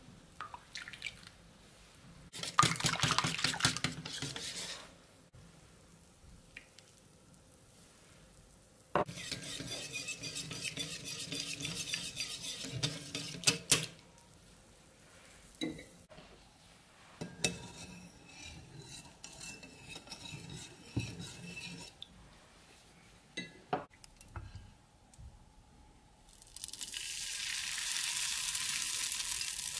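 A wire whisk beating crepe batter in a bowl in two spells, followed by scattered clinks and knocks of utensils. Near the end, crepe batter sizzles steadily as it is ladled into a hot frying pan.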